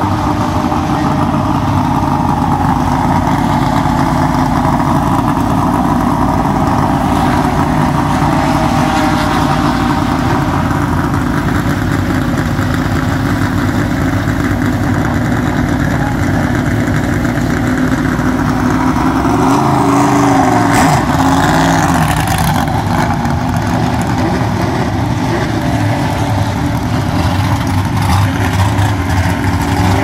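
Vintage racing car engines running steadily at low revs, with one rev that rises and falls about two-thirds of the way through.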